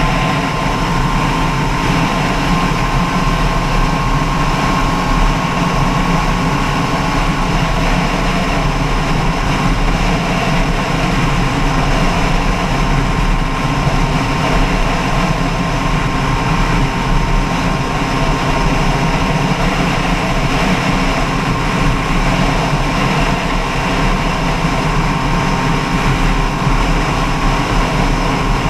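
An engine running steadily at a constant speed, with a steady hum and a thin whine near the middle of the pitch range.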